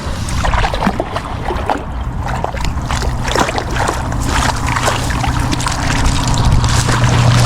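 Water splashing and trickling, with a steady low motor hum that comes in about two seconds in and grows louder.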